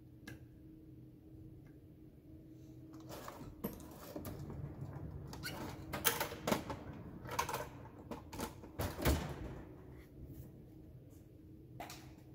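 Hand tools being put away in a steel tool chest drawer: the drawer slides and metal tools clatter in, a run of clicks and clanks starting about three seconds in, loudest around six and nine seconds in, with one more click near the end.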